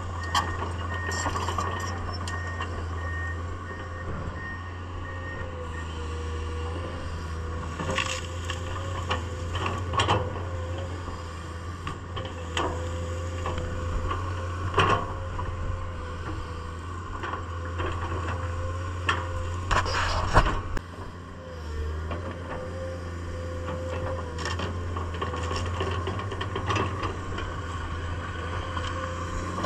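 Komatsu PC210 hydraulic excavator's diesel engine running steadily with a steady whine over it, and a beeping alarm for about the first five seconds. Occasional knocks and scrapes from the working machine, the loudest about twenty seconds in.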